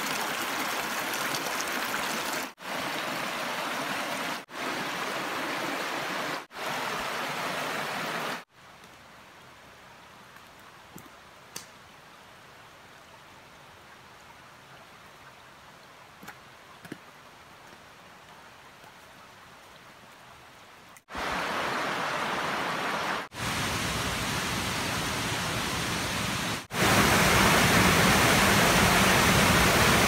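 Rushing stream water over rocks, in short takes that start and stop abruptly, then a quiet stretch of about twelve seconds with a few faint ticks. From about 21 s the rushing water returns, loudest near the end as a waterfall pours into a pool.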